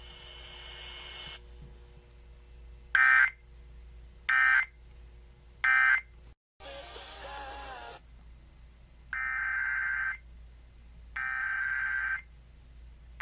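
Emergency Alert System SAME data bursts, a harsh warbling digital screech: three short bursts about a second and a half apart, typical of the end-of-message code closing the thunderstorm warning, then after a short stretch of static, three longer bursts about two seconds apart, typical of the header that opens the next alert.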